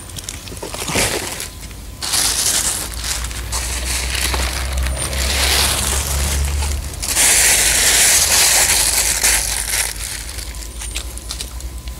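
Plastic wrapping and packing bags crinkling and rustling as parts are handled in cardboard boxes, loudest about seven to ten seconds in.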